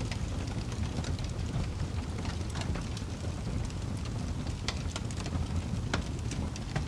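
Fire crackling: a steady low rush of the flames under frequent sharp snaps and pops, a few louder pops standing out in the second half.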